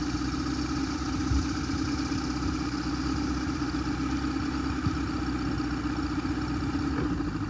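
Boat motor running steadily at low throttle, idling along with an even hum.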